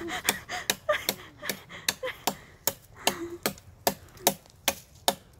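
A machete chopping into a tree branch in quick, steady strokes, about four sharp chops a second.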